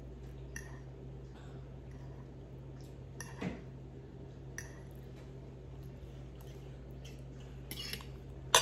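Metal fork clinking and scraping on a ceramic plate, with chewing, over a steady low hum. There are a few scattered clinks, and the sharpest and loudest comes at the very end.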